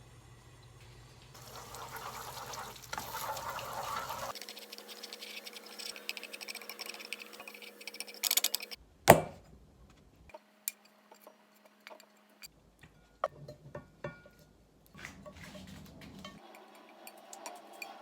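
Household handling sounds in several short clips: a rush of water or pouring, then scattered clinks and taps, with one sharp knock about nine seconds in.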